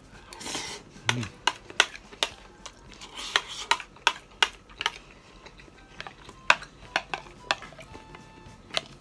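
Metal spoon clinking and scraping against a bowl as food is scooped up: a string of sharp clicks, with a pause around five to six seconds in.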